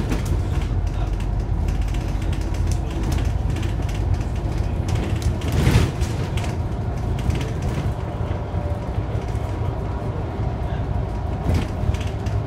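Inside a Scania Enviro 400 double-decker bus on the move: a steady low engine and road rumble, with interior panels and fittings rattling and creaking throughout. A louder clatter comes about six seconds in.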